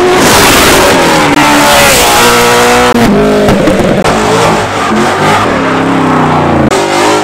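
Car engines revving hard as cars pull away, engine pitch climbing and dropping again and again, loud throughout.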